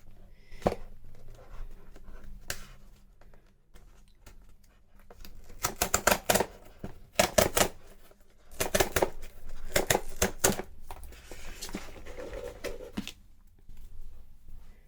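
A cardboard subscription box being opened by hand: scattered clicks, then two runs of crackling and tearing of packaging and paper, about halfway through.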